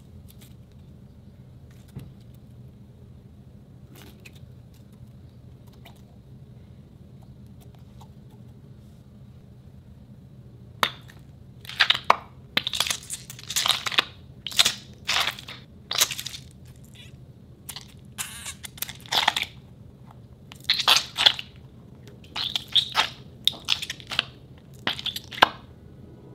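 A gel-filled mesh stress ball squeezed in the hand, giving irregular crackly squelches that start about eleven seconds in and come in quick clusters. Before that there is only a faint low hum with a few soft clicks.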